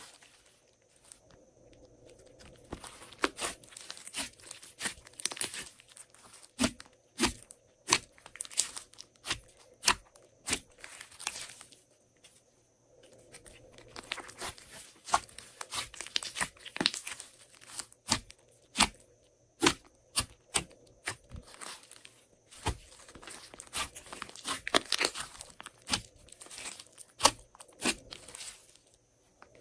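Glossy slime being worked by hand, giving many sharp pops and clicks with long runs of crackling as add-ins are mixed through it.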